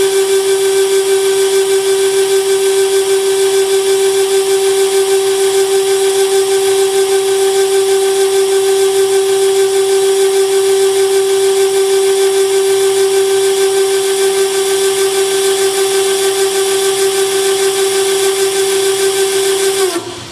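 Pandjiris 30-6AB welding positioner's tilt drive running at its constant speed as the table tilts: a loud, steady whine of one unchanging pitch that cuts off suddenly near the end as the tilt stops.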